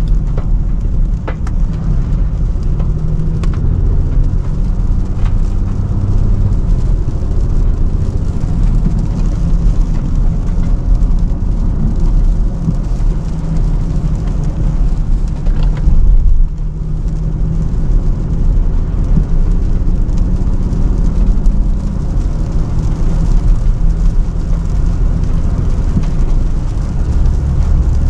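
Range Rover Sport being driven on wet city roads: a steady low engine and road rumble with a hiss above it.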